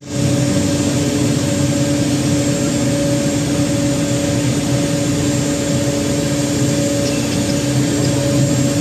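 Water taxi's engine running at a steady cruise: a constant hum over an even rushing noise, with no change in speed.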